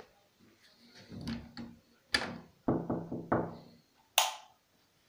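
Knocks and bangs on a wooden door: a single bang, then a quick run of about four ringing knocks, then a sharp bright click of the door's metal lever handle or latch near the end.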